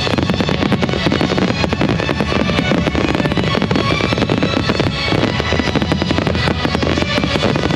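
Fireworks going off in a dense, rapid run of bangs and crackles with no pauses, over loud music.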